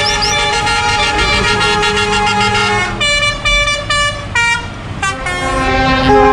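Truck air horns sounding from the passing convoy, several pitches held together as a chord, with a run of short blasts about three to five seconds in before a long held blast resumes, over the low running noise of the trucks.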